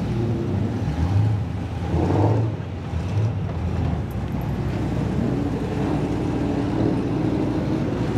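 Performance cars, among them a V8 Cadillac CTS-V coupe and a Shelby GT350 Mustang, driving past one after another, their engines rising briefly in pitch as each accelerates away.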